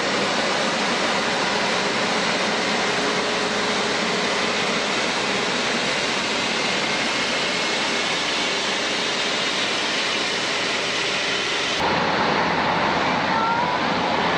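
Jet airliner engines running with a steady noise. About twelve seconds in, the sound changes abruptly, and a short rising whine follows.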